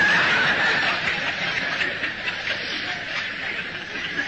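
An audience laughing and chuckling together, the laughter slowly dying away.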